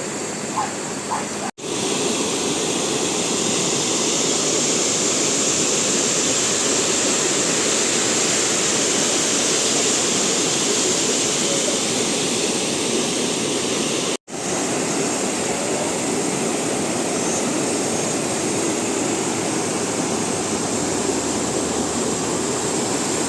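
Steady rushing of a river, broken by two brief drops to silence, about a second and a half in and about fourteen seconds in.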